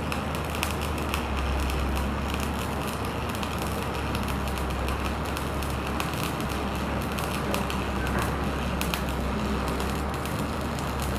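Stick (shielded metal arc) welding rod burning in a steady vertical weld bead: a continuous dense crackle and sizzle of the arc, over a low steady hum.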